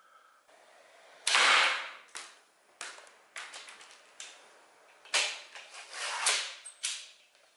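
MARK 3 slingshot rifle being shot and worked: a loud snap about a second in, scattered sharp clicks, then another cluster of louder snaps and clacks a few seconds later.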